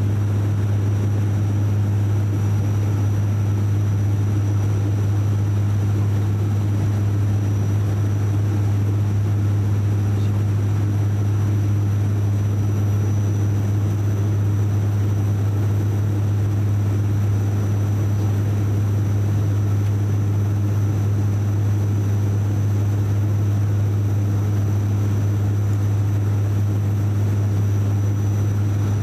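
Cabin noise inside a De Havilland Canada Dash 8 Q400 turboprop airliner on approach: the steady, deep drone of its six-bladed propellers, with a thin high whine above it.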